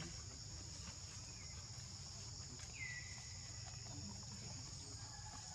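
Steady high-pitched insect chorus droning in the undergrowth, with a low background rumble. About three seconds in, a single short high call slides down in pitch.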